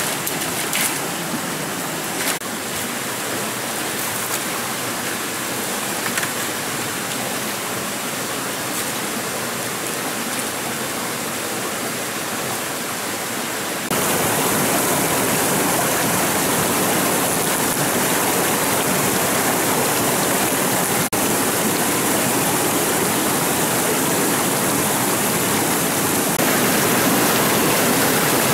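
Shallow rocky stream running steadily. From about halfway through the rush is louder and fuller, as the water spills over rocks in a small cascade.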